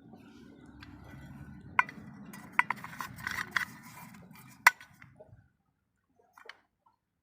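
Several sharp clinks of hard objects knocking together, over a low rumble that stops about five seconds in.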